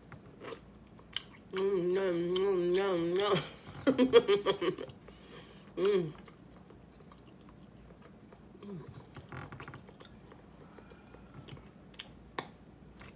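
A person eating: wet chewing with short smacking clicks, and a long wavering hum about one and a half seconds in, followed by shorter hums around four and six seconds.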